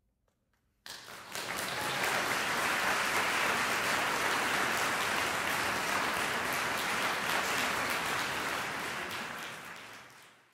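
Audience applauding: after a moment of near silence, applause breaks out suddenly about a second in, holds steady, and fades out near the end.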